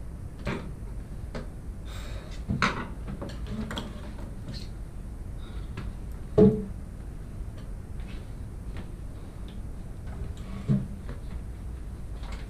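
Steady room hum and hiss with a few short knocks and scrapes as a man gets up from a wooden desk and moves about; the loudest knock comes about six and a half seconds in.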